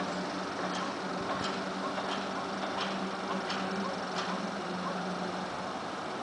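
A low, steady horn-like drone of unknown origin that stops shortly before the end, over a background hum, with faint ticks about every 0.7 s. The recorder likens it to a horn sounding in the sky, one of the 'strange sounds in the sky' reported worldwide.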